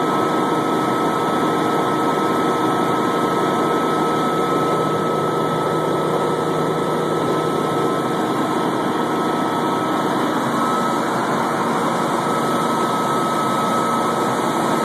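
Helicopter in flight: a loud, steady engine and rotor drone heard from inside the cabin, with a constant high whine over it.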